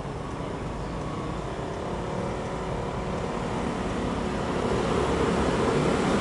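Outdoor rumble of vehicles, a low steady noise that grows gradually louder.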